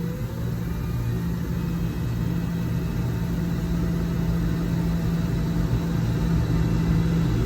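A vehicle's engine running steadily with a low hum, heard from inside the cabin.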